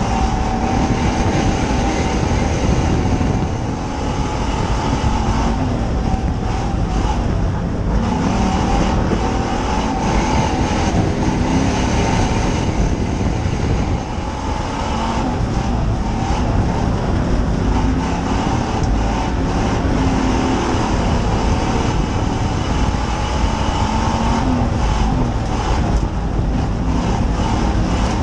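Dirt oval race car's engine heard from inside the cockpit, running hard under racing load, its pitch rising and falling as the driver lifts and gets back on the throttle, with brief dips about four seconds and fourteen seconds in.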